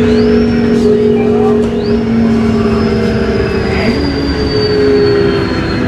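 Interior drone of a 1998 New Flyer C40LF bus under way, its Cummins Westport C Gas Plus engine and Voith three-speed transmission humming steadily. A thin high whine rises sharply twice and then slowly sinks, and the pitch of the low hum steps about four seconds in.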